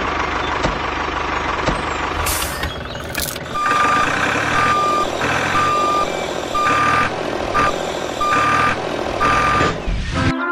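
A vehicle's reversing alarm beeping: a single steady tone repeated over and over, starting a few seconds in, over steady engine noise.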